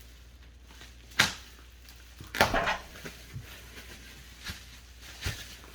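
Bubble wrap and tape on a packed stove being pulled open: a sharp crack about a second in, a short crinkling rip a little over a second later, then a few light knocks.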